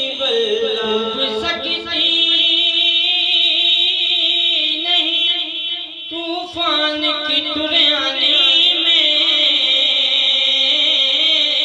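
Men singing a Punjabi naat into microphones over a PA, in long, wavering, melismatic lines, with a short break about six seconds in.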